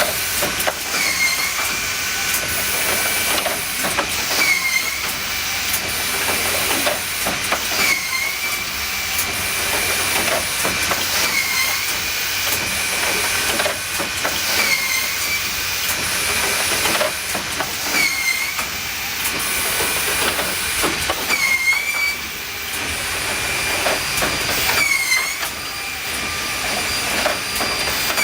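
KOCH drawer-part woodworking line running in production: a high machine whine that dips briefly in pitch about every three and a half seconds, each dip with a burst of clatter as parts go through, over a steady hiss of compressed air.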